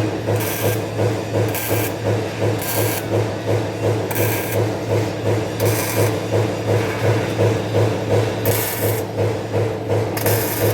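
Metalworking machinery running in a steady cycle: a constant low electrical hum under a regular pulsing of about two beats a second, with short hissing bursts every second or two.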